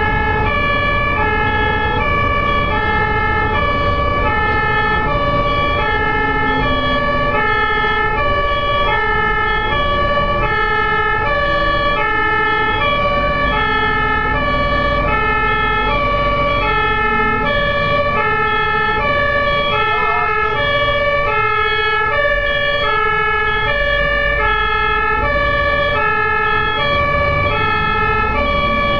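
Ambulance two-tone siren, steadily alternating between a high and a low note, loud and close, over low road rumble.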